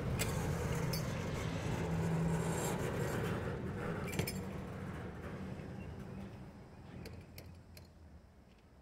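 Double-stack intermodal freight train rolling slowly past: a low rumble of wheels on the rails with scattered metallic clicks and clanks, the rumble fading away steadily.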